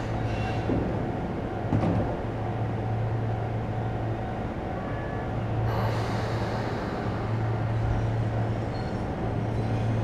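Keio Line electric commuter train heard at the station: a steady low hum, with a hiss coming in about six seconds in.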